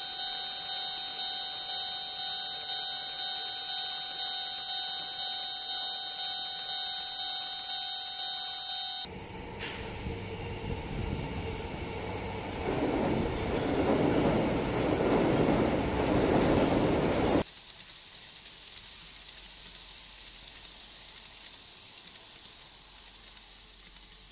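A model railway level crossing's electronic warning alarm ringing in a steady, evenly pulsing ding for about nine seconds. It gives way to a real electric commuter train running past, its rumble growing louder and then cutting off suddenly, followed by a quieter hiss with faint scattered clicks.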